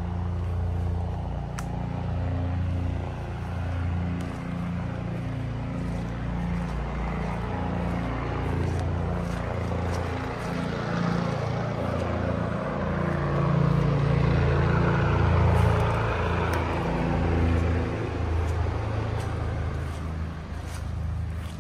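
An engine running steadily with a low hum, under the rustle of leaves and branches, which is loudest about halfway through.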